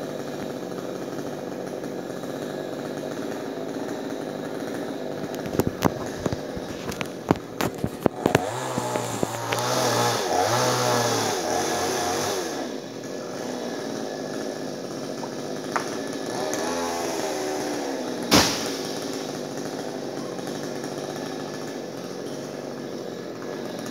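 Chainsaw running steadily, revved up into a cut about eight seconds in and again briefly around sixteen seconds. A string of sharp knocks comes just before the first cut, and a single loud thud comes around eighteen seconds.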